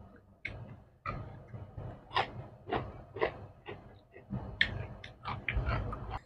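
People eating with their hands: chewing and lip-smacking, heard as a string of short, irregular soft clicks and smacks.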